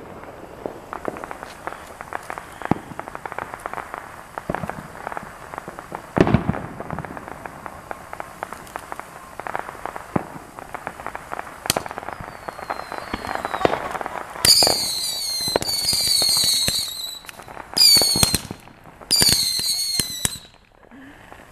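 Fireworks: a ground fountain crackles with a dense run of small pops and one stronger pop. From about two-thirds in come three spells of shrill whistling, each made of repeated falling-pitch shrieks, typical of whistle-effect fireworks.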